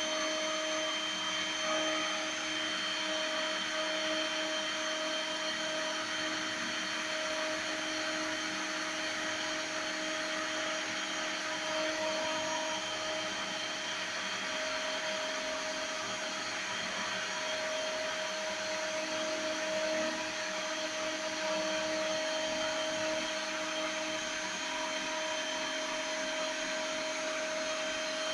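CNC router spindle running steadily while milling a printed circuit board: an even whine with a few steady tones over a hiss.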